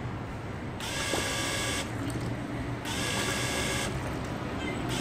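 Small electric pump of a digital-control liquid filling machine running in two short bursts of about a second each, a high-pitched buzz, with about a second's pause between them.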